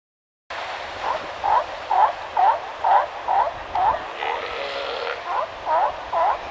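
Galápagos sea lion barking over and over, about two short barks a second, starting half a second in, with a lull of about a second near the middle; surf washes steadily behind.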